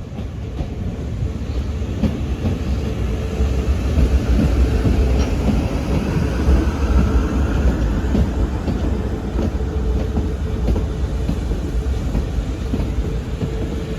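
An eight-car South Western Railway Class 450 Desiro electric train, two four-car units coupled, running into the platform alongside. It makes a steady, heavy rumble of wheels on rail that builds over the first few seconds and then holds.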